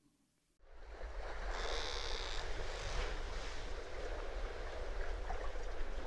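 Outdoor sound of sea surf and wind buffeting the microphone, coming in abruptly about half a second in, with a brief high hiss around two seconds in.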